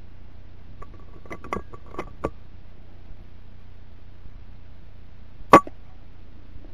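A few light clicks and taps, then one sharp crack about five and a half seconds in: a moderated air rifle firing at a rat.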